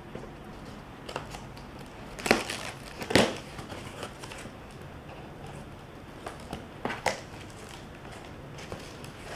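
Cardboard shipping box being cut open with scissors and its flaps pulled back: crinkling and scraping of cardboard and packing tape, broken by a few sharp, louder rips or snips, the two loudest a little after two and three seconds in and another near seven seconds.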